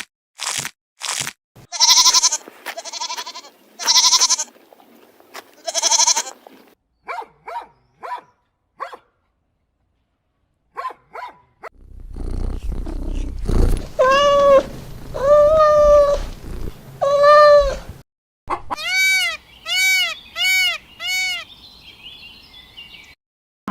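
A run of farm-animal calls, mostly bleating cries. A few cries come near the start, then three long bleats over a low rumble, then a fast run of six short, arching calls near the end.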